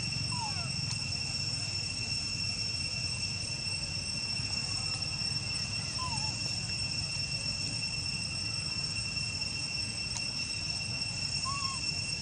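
Steady, high-pitched drone of forest insects such as cicadas or crickets, with a few brief faint chirping calls and a low rumble beneath.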